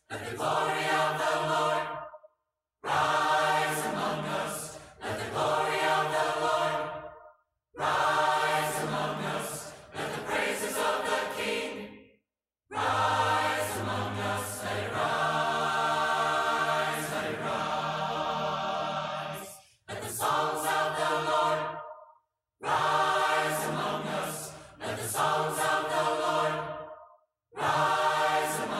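A cappella mixed choir singing a hymn in four-part harmony. Its phrases are broken by about six short gaps of full silence.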